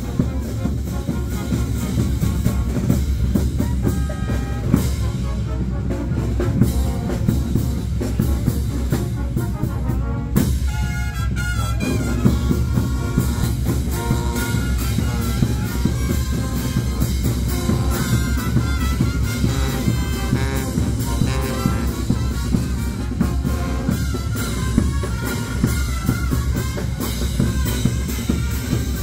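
Brass band with trumpets and drums playing continuously, the street-band accompaniment of a Tirana religious dance troupe; the drums drop back briefly about ten seconds in.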